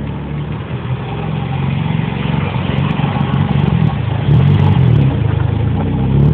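Engine of a small vintage open two-seater sports car running as the car drives up and passes close by, growing louder as it nears.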